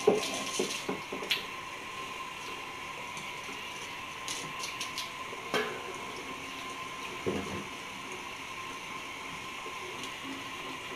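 Kitchen faucet running water over a stainless steel corny keg as it is rinsed off, with a few sharp knocks of the metal keg and fittings near the start and twice more midway.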